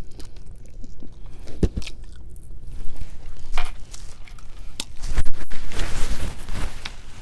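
Close-miked chewing and biting of a chicken wing coated in dressing: irregular sharp clicks and wet mouth noises, busier in the second half.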